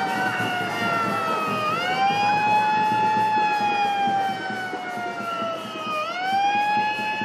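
An emergency-vehicle siren wailing in slow cycles. Its pitch climbs quickly about two seconds in and again near six seconds, then sinks slowly each time. Under it runs a steady background of street and crowd noise.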